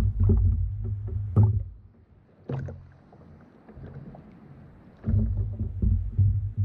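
Kayak on the water: low rumbling water-and-hull noise in two spells, fading about two seconds in and returning about five seconds in, with a couple of sharp knocks in between.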